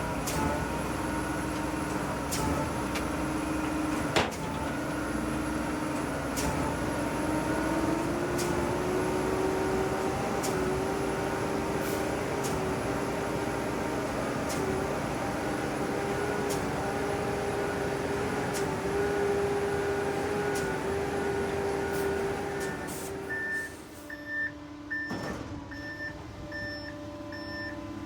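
Concrete mixer truck's diesel engine running steadily, its pitch stepping up a little about eight seconds in, with sharp ticks about once a second. Near the end the sound changes abruptly to a quieter engine and a truck's reversing beeper, beeping about twice a second.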